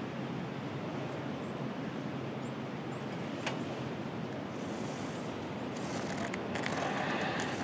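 Steady outdoor wind noise, with a single faint click about three and a half seconds in.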